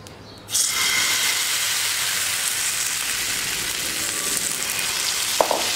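Rice-flour uttapam batter hitting hot oil in a nonstick pan, starting to sizzle suddenly about half a second in and sizzling steadily on. Two short clicks near the end.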